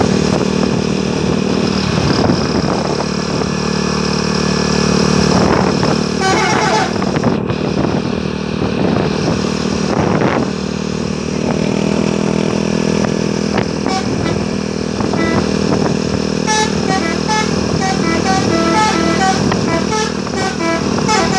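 Indonesian 'telolet' multi-tone bus horn: a brief burst of horn tones, then a quick tune of short stepped notes through the last five seconds or so. Under it runs a steady din of engines and road traffic.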